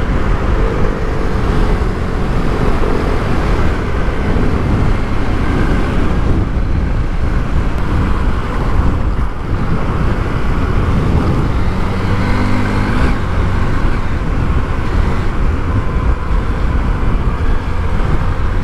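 Small single-cylinder dual-purpose motorcycle running under way on the road, heard from the rider's position with steady road and wind noise; the engine note rises and falls briefly a few times.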